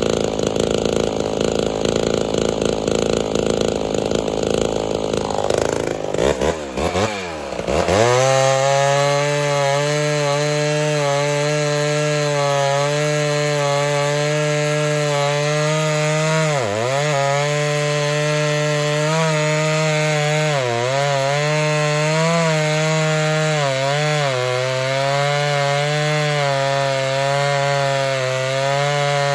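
Two-stroke chainsaw cutting through a large round of firewood. The engine runs roughly for the first few seconds and swoops up and down in pitch, then from about eight seconds in it holds a steady high note in the cut, sagging briefly about three times as it bogs. The chain is dull, so the saw cuts slowly.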